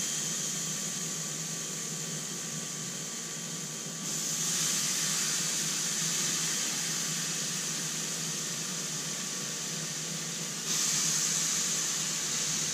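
Pork steaks sizzling on the hot grate of a Power Smokeless Grill, the sizzle stepping up louder about four seconds in and again near the end as another steak is laid on. The grill's smoke-extraction fan hums steadily underneath.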